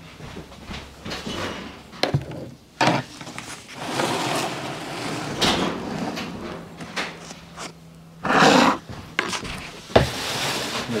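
Pizza cutter rolling through a thin baked pizza on its tray: a series of scraping, crunching strokes with a few sharp knocks, the loudest stroke about eight seconds in.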